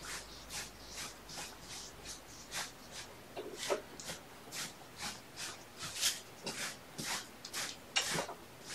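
Broom bristles sweeping across the floor in brisk, regular strokes, about two a second.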